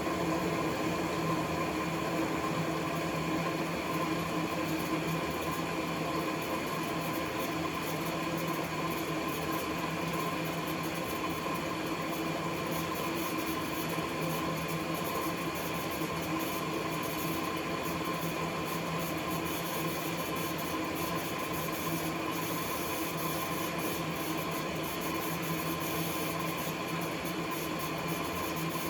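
Dishwasher running a quick cycle: its pump motor gives a steady hum with a hiss over it.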